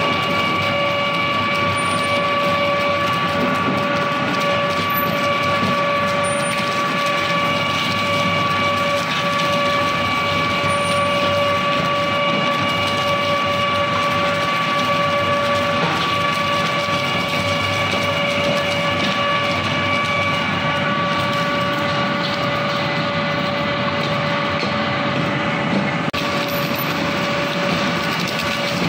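Double-shaft wood shredder running loaded, its shafts chewing through leafy green branches: a steady mechanical din with a constant whine over crunching and clattering.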